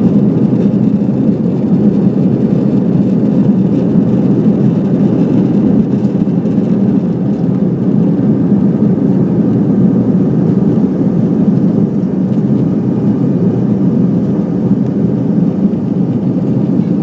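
Airbus A320-200 climbing after takeoff, heard from inside the cabin: a loud, steady rumble of engines and airflow, low and even throughout.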